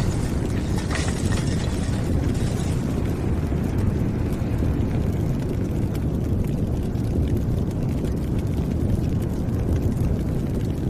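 Deep, steady rumble, like the drawn-out aftermath of an explosion, with a high hiss that fades away over the first few seconds.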